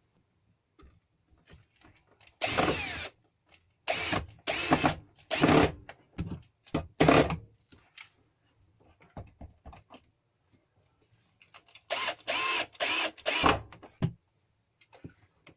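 Handheld power drill run in short bursts: about six quick runs in the first half, then another cluster of four or five near the end, as if driving screws.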